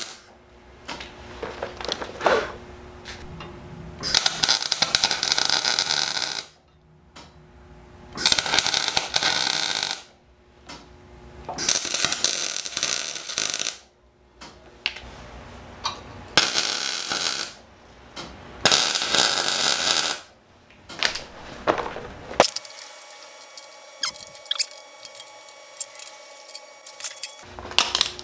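Electric arc welding of a steel bracket onto the mini bike's brake caliper mount. About five weld runs of one to two and a half seconds each, with short pauses between, as the bracket is fully welded.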